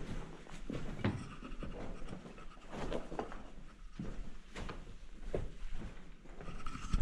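Footsteps crunching and scraping over a rocky, stony cave floor as several people walk, with panting breath close by.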